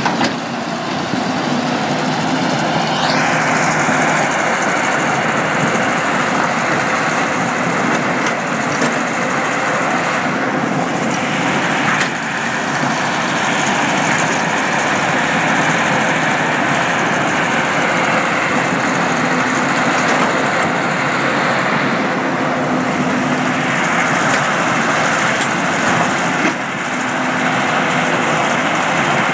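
Heavy machinery running steadily: the diesel engine and hydraulics of a Hitachi Zaxis 160LC excavator digging, beside a McCloskey mobile crusher. The noise is loud and continuous and brightens a few seconds in.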